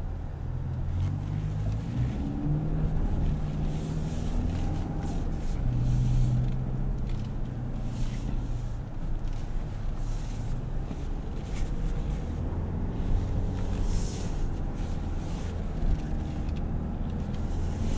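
Toyota Land Cruiser's 2.4-liter turbocharged four-cylinder hybrid engine running quietly at low speed, heard from inside the cabin as the truck creeps along a dirt trail, its low hum shifting slightly in pitch, with scattered light clicks and crunches.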